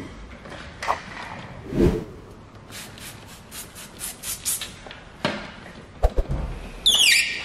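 A hand trigger spray bottle misting tack solution in a quick run of about eight squirts, roughly four a second. Near the end come a couple of sharp knocks and a short squeak falling in pitch as a squeegee drags over the wet paint protection film.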